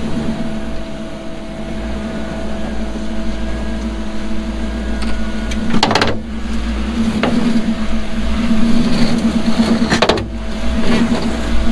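Off-road vehicle's engine running at steady low revs while rock crawling, with a constant low hum. Two short, sharp noises break through, about six and ten seconds in.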